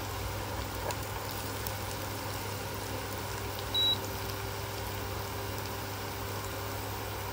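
Sliced shallots, garlic and chili frying gently in oil in a pan: a soft, steady sizzle over a low hum. A single short high beep comes nearly four seconds in.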